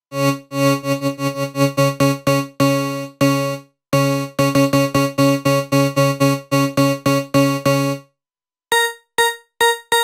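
Kilohearts KHs One software synthesizer playing a bright patch: one low note struck over and over in a quick, uneven rhythm. After a short break near the end come a few short, higher notes that die away quickly.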